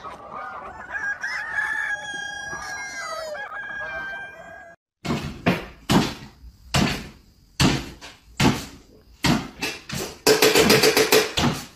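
Chickens clucking and calling with pitched, gliding cries. After a cut about five seconds in, a run of sharp, louder sounds comes roughly once a second, with a longer noisy burst near the end.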